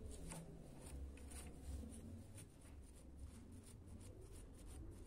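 Faint scratchy ticking of a bristle brush dabbing paint stripper onto a small painted metal oil-lamp part, over a low steady hum.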